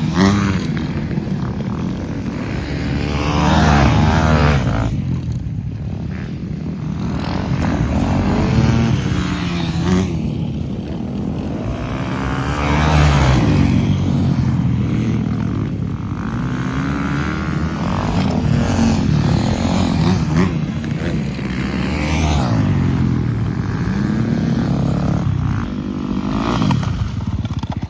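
Flat-track motorcycle engines revving up and backing off again and again, the pitch rising and falling as the bikes accelerate and slide around a small dirt oval.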